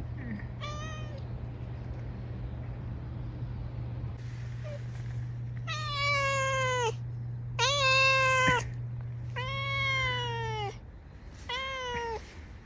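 Grey-and-white domestic cat meowing in complaint at being touched: one short call about half a second in, then four longer, louder meows from about six seconds on, each dropping in pitch at its end. A steady low hum runs underneath.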